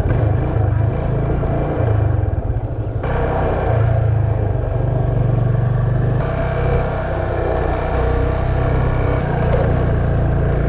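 Yamaha FZ25's single-cylinder engine running steadily, its sound turning suddenly brighter about three seconds in and again about six seconds in.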